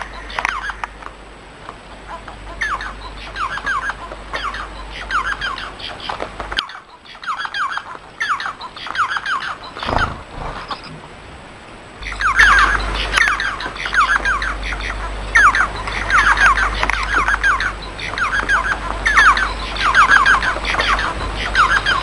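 Small caged finches chirping: rapid runs of short, sharp, downward-sweeping chirps, several a second. The chirps drop out abruptly about six and a half seconds in and come back louder about halfway through, over a faint steady high whine.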